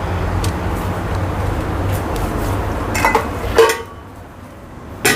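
A steady low rumble that drops away about four seconds in, with two short clinks of kitchenware shortly before it stops.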